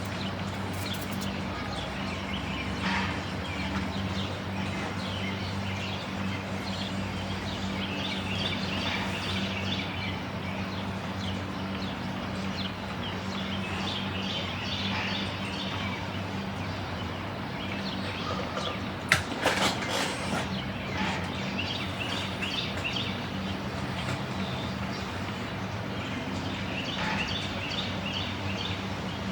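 Birds chirping and tweeting over a steady low hum, with one sharp click about two-thirds of the way through.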